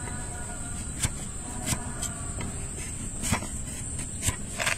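A long flat farrier's paring blade cracking through a horse's hoof horn, shaving off slices: about five sharp cracks at irregular intervals. Under them runs a steady low rumble and a thin high steady whine.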